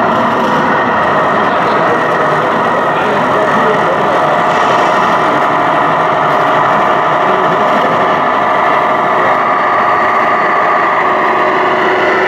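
Simulated diesel engine sound from a radio-controlled Mercedes-Benz Actros model truck's sound module, running steadily at a low idle as the truck rolls slowly along. Its pitch shifts near the end.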